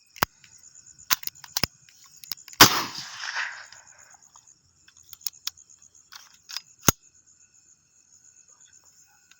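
A pistol fires one shot about two and a half seconds in, ringing off over a second or so. Sharp clicks come before and after the shot, and insects chirp steadily throughout.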